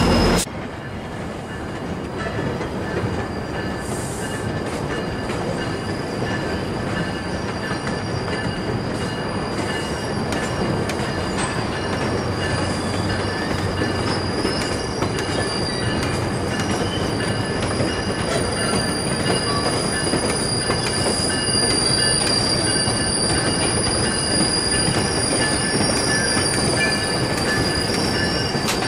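GO Transit bilevel passenger coaches rolling slowly past, their steel wheels squealing against the rails in steady high-pitched tones over the rumble of wheels on track, growing gradually louder.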